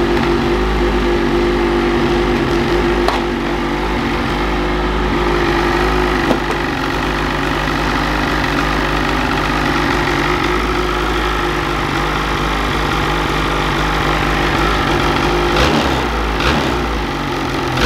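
Ski-Doo Freeride 850's Rotax 850 E-TEC two-stroke twin idling steadily through its stock exhaust, which sounds so quiet on the stock muffler. A few light knocks come near the end.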